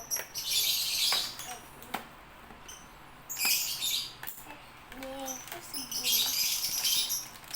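Packaging being handled during a toy unboxing: three bursts of crinkling and rustling, each up to about a second long, with small clicks and taps between them.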